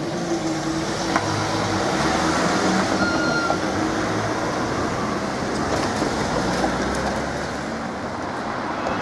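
Level crossing lifting barriers rising with a steady hum from their drive that stops after about four seconds. Road traffic noise runs throughout as cars start to cross.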